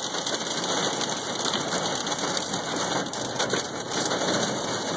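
Heavy rain drumming hard and steadily on a car's roof and windshield, heard from inside the cabin.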